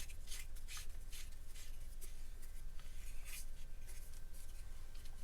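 Faint scratching, rubbing and light ticks from small objects being handled on a table, a few a second at irregular intervals, with one sharper click near the end.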